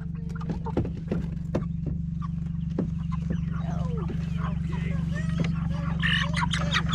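Chickens clucking and squawking as they are caught from a pen and loaded into plastic crates, with sharp knocks from the handling. A louder cluster of squawks comes about six seconds in. A steady low hum runs underneath.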